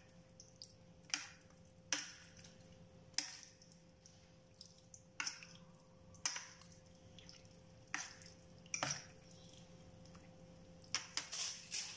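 Metal fork and spoon clinking and scraping against a ceramic plate while mixing a wet mash of eggplant, sardines and egg, with soft squishing between. There are sharp clinks every second or two, and a quick run of them near the end.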